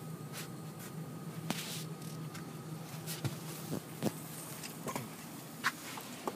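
Steady low hum of a running air handler, with scattered short clicks and rustles of handling as a temperature probe and its meter are moved over foil-faced duct insulation.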